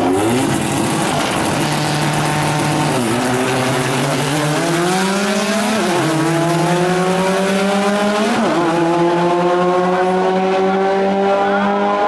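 VW Gol drag car's engine at full throttle down the drag strip, climbing steadily in pitch and dropping with an upshift three times, about every two and a half to three seconds.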